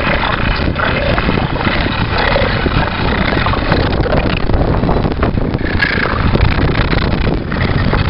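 Fire truck engine running as the truck drives along on its rear wheels in a wheelie, with wind buffeting the microphone.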